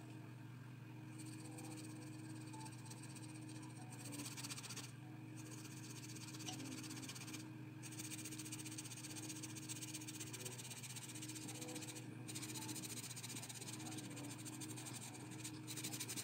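Coloured pencil scratching on paper in quick back-and-forth shading strokes, stopping briefly a few times, over a steady low hum.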